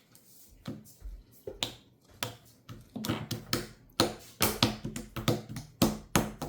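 Slime being squeezed and poked with the fingers, giving a run of sharp little pops and clicks that come quicker and louder from about halfway on.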